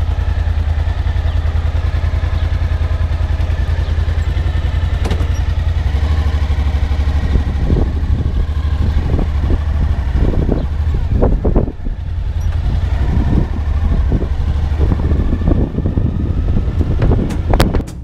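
Suzuki V-Strom motorcycle's V-twin engine running steadily, heard from the rider's seat, with irregular thumps joining in from about seven seconds in. Drum music starts near the end.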